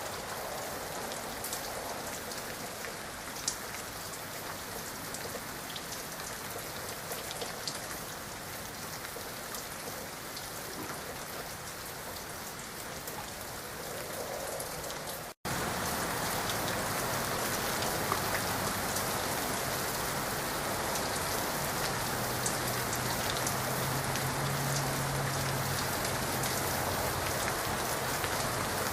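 Heavy rain falling steadily, with scattered sharp ticks of drops striking close by. About halfway the sound drops out for an instant and returns louder.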